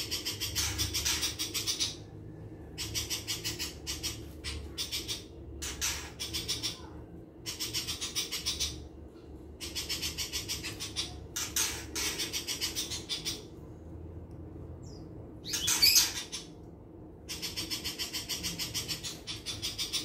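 Caged pentet (long-tailed shrike) singing: runs of fast, rapidly pulsed chattering, each a second or two long and repeated with short pauses, with one louder, sharper call about three-quarters of the way through.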